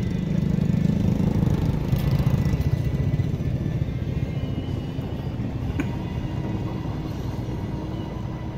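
Low engine rumble of passing motor traffic, swelling over the first two seconds or so and then easing to a steadier, quieter drone.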